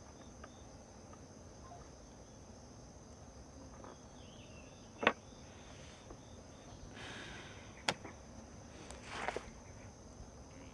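Crickets chirring steadily as quiet night ambience, with two sharp clicks about five and eight seconds in and a couple of brief soft rustles.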